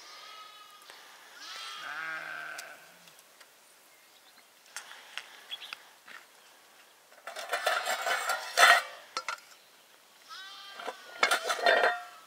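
Sheep bleating several times, each call wavering in pitch: twice in the first few seconds and once more near the end. Louder bursts of scuffling noise come in the middle and near the end.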